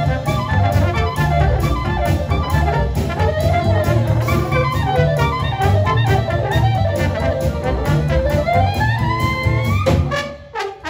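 Dixieland jazz band playing live: clarinet and trombone melody lines over archtop guitar and double bass. A rising melodic line climbs near the end, then the band breaks off briefly in the last second.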